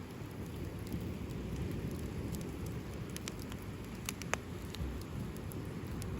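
Campfire burning: a steady low rumble with scattered sharp crackles and pops of the burning wood, one louder pop a little over four seconds in.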